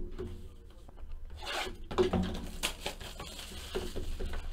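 Hands handling and sliding cardboard trading-card boxes: scattered rubbing and scraping noises.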